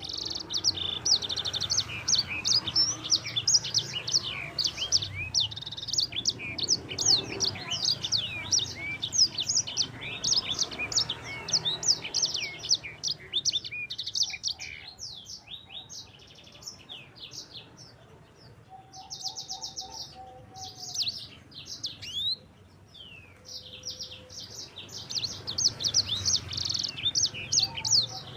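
A sanger songbird singing a fast, rolling song of rapid high chirps and buzzy trills, with the song thinning out for several seconds past the middle and building up dense again near the end.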